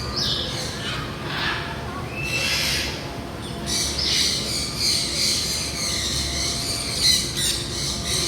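Many birds calling at once: a dense, overlapping chorus of high-pitched chirps and squawks, with a short rising call a couple of seconds in.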